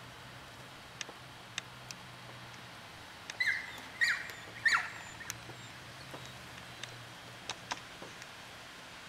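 A dog whining in three short, high-pitched yelps about three and a half seconds in, each falling in pitch; the dog is upset after its owner was taken away.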